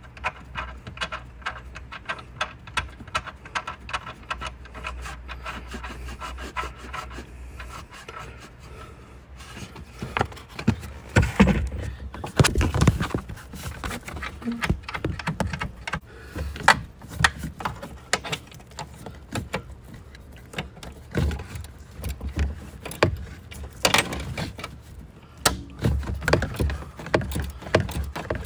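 Upper strut-mount nuts being run down onto the studs by hand through the cargo-area access opening, making a string of small metallic clicks and rattles. From about ten seconds in there are louder, irregular knocks, scrapes and rubbing against the plastic trim.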